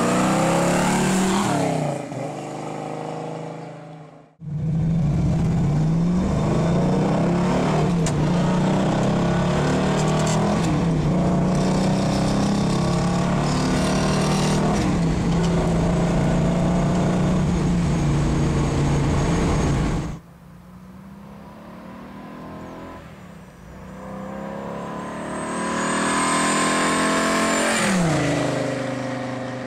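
1970 Plymouth Cuda's 440 Six Pack V8 with dual exhaust, running loud as the car drives past and fades away. Then a long loud stretch heard from on board as the engine accelerates, rising in pitch several times as it goes up through the gears of the four-speed. Near the end the car approaches and passes close, its engine pitch dropping as it goes by.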